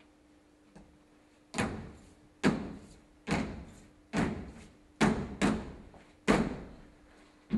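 A faint tap, then seven loud, heavy thuds, most a little under a second apart with two close together, each dying away with a short echo.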